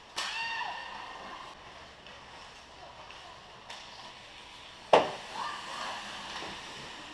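Ice hockey play heard from beside the goal: a short shout right at the start, then about five seconds in one loud, sharp crack of a hockey impact, the loudest sound, followed by another brief shout.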